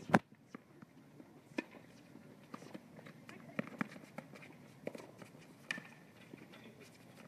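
Tennis doubles rally on a hard court: a loud sharp crack right at the start, then balls being struck by rackets and bouncing about once a second, with players' footsteps.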